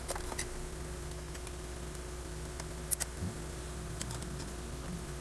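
Handling noise: a few light plastic clicks and taps as a Comfast outdoor Wi-Fi access point and its network cable are picked up and turned over on a desk, over a faint steady hum.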